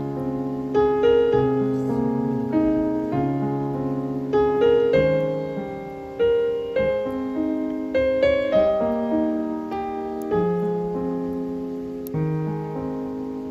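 Background music on solo piano: a melody over chords, each note struck and then fading.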